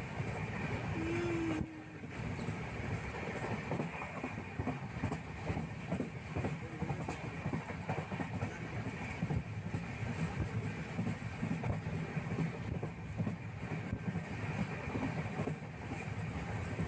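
Steady rumble and clatter of a moving vehicle, with a brief dip in level about two seconds in.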